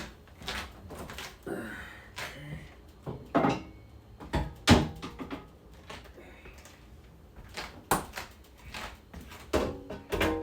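Irregular knocks and clatters of refrigerator shelves, drawers and containers being handled, with the loudest thump about five seconds in.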